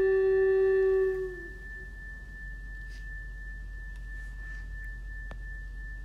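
A flute-like wind instrument holds a low closing note that ends about a second in, while a single high, steady pure tone rings on through the rest. A faint click about five seconds in.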